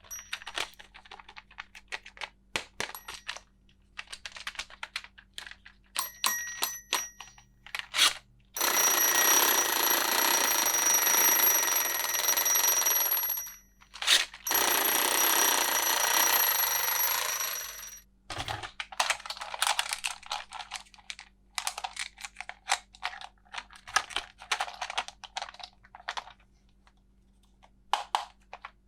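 Plastic toy pieces clicking and tapping as they are handled, with two loud, steady ringing sounds of about four seconds each from a toy in the middle.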